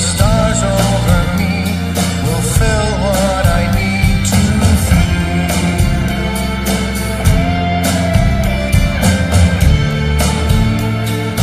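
A rock song played by a band, with a steady drum beat, deep bass and electric guitar. A lead melody line wavers in pitch over the first few seconds.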